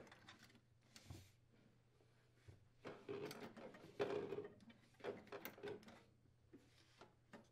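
Faint handling sounds as a refrigerator defrost heater is pressed into its mounting clips under the evaporator coil: scattered light clicks and rubbing, busiest in the middle.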